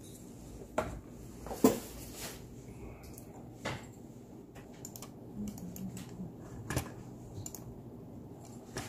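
Scattered clicks and knocks from someone working a computer's keyboard and mouse, with one louder knock a little under two seconds in.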